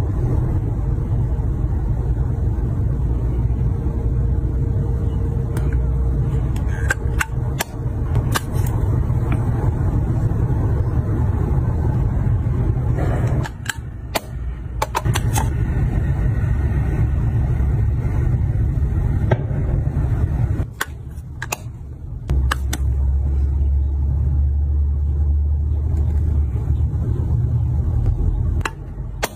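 Small clear plastic nail cases handled, their hinged lids clicking open and snapping shut in many sharp plastic clicks, over a steady low rumble.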